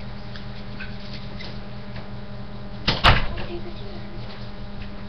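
A door shutting with a sharp double bang about three seconds in, ringing briefly, over a steady low hum.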